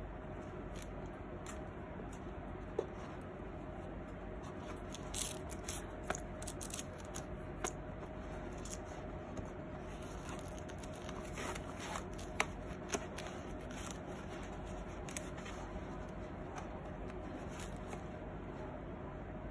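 Hands handling a felt keyboard sleeve with a keyboard inside: soft rustling of the felt with scattered light clicks and taps, most of them in the middle stretch, over a steady faint hum.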